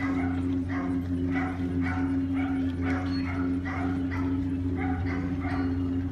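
A dog barking rapidly and steadily, about three yaps a second, over a steady low engine drone.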